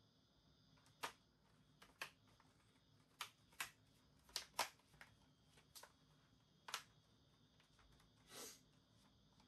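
Light, sharp clicks and taps from handling a screwdriver and the plastic parts of a laptop during reassembly, about ten of them spaced irregularly, with a short scrape near the end.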